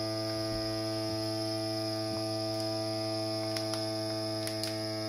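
Siaouwo vacuum sealer's pump running with a steady hum, drawing the air out of a plastic bag so it shrinks tight around its contents. A few faint ticks come in the second half.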